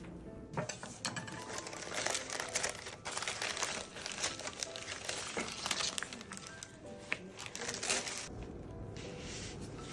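Baking parchment paper crinkling and rustling as it is handled and peeled back from a baked brownie, over background music. The crinkling stops about eight seconds in.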